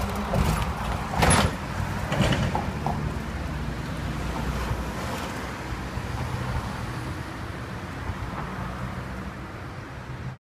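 Road traffic: a lorry passing close by, with two loud surges about one and two seconds in, then a steady low traffic rumble that slowly fades.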